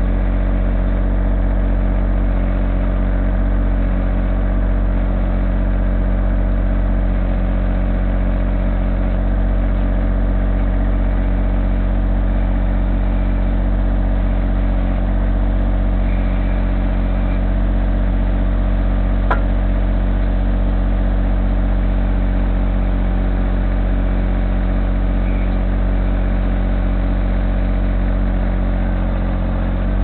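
John Deere 1025R compact tractor's three-cylinder diesel engine running steadily at a constant speed, with one brief click about twenty seconds in.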